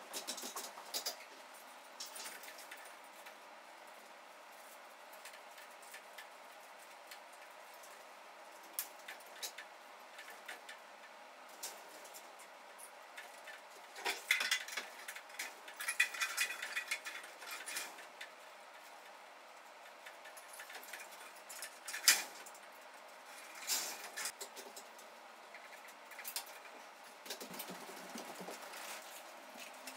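Scattered light clicks and rattles of black plastic chain segments being handled and an aluminium stepladder being climbed. The clicks are busiest around the middle, with one sharp click a little later, over a faint steady room hum.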